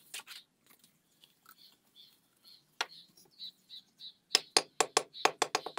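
A small hammer tapping a fired brick down into its mortar bed: a quick run of about ten sharp taps starting a little past four seconds in, after a few scattered knocks. Faint bird chirps underneath.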